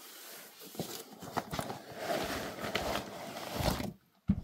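Handling of a cardboard box and a plastic barrier bag as the bag is lifted out. The sound is a rustle of cardboard and plastic with a few light knocks and scrapes.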